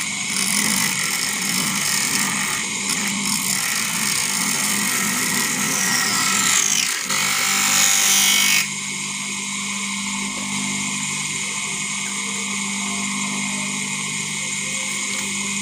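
Homemade cutter built from a water-pump electric motor, its cutting disc grinding through grey PVC pipe with a loud rasp for about nine seconds. The cutting stops abruptly and the motor keeps running with a steady hum.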